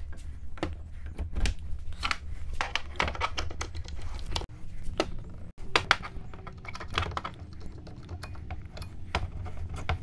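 Clicks and knocks of wooden blocks being handled on a workbench and quick-release bar clamps being squeezed tight, over a low steady hum.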